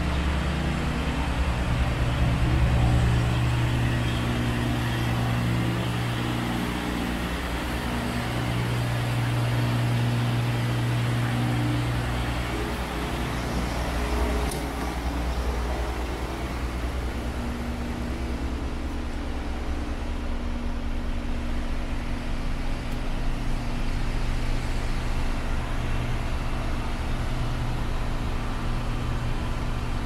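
Heavy diesel engine idling steadily, a low even hum. There is a faint click about halfway through.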